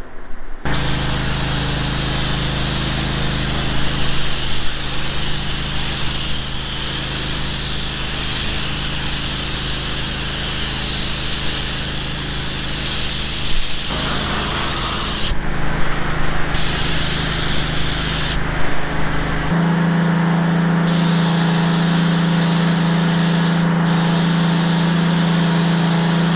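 Gravity-feed paint spray gun hissing steadily as compressed air atomises metallic gray paint, with a steady low hum underneath. The spray stops briefly a few times when the trigger is released, then starts again.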